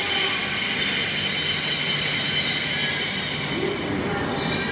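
Hokuriku Shinkansen train rolling slowly into the platform and braking to a stop. Its running noise eases off about three seconds in, over a steady high-pitched whine.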